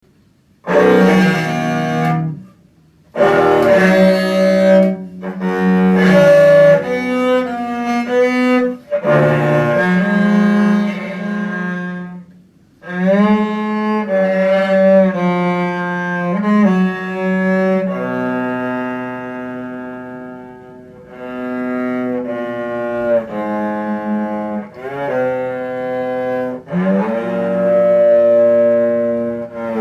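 A cello built without a sound post, bowed in phrases of sustained notes, with short breaks about two seconds in and about twelve seconds in.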